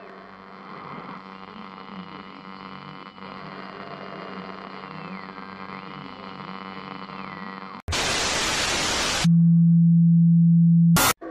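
Eerie droning soundtrack with a high tone that sinks and climbs back. About eight seconds in it breaks into a loud burst of static, then a loud, steady low hum, and a short burst of static near the end.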